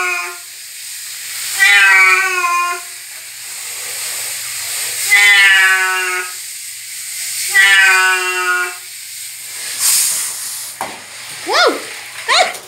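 Domestic cat meowing while being bathed: the end of one meow, then three long, drawn-out meows about every two and a half seconds, the cries of a cat unhappy in the bath. A steady hiss runs behind them, and a few short squeaks and knocks come near the end.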